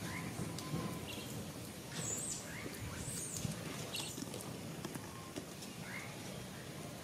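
Outdoor ambience: a steady low rumble with a few short, high bird chirps scattered through it, the clearest about two and three seconds in.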